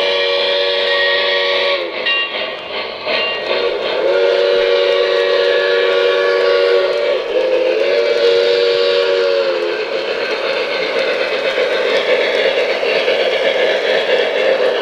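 The onboard sound system of a Lionel O-gauge Strasburg #89 2-6-0 model steam locomotive blowing its chord steam whistle in a long, long, short, long pattern, the grade-crossing signal. Each blast dips in pitch as it ends. After the last blast a steady rushing running sound continues as the engine moves along the track.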